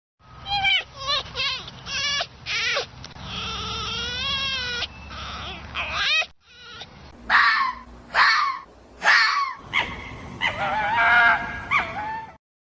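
Fox calling: a quick series of short yelps, then a wavering, whining call, and after a brief break several loud, harsh screaming calls.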